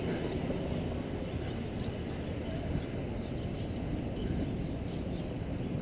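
Steady city street background noise: a low, even rumble of traffic with no distinct events.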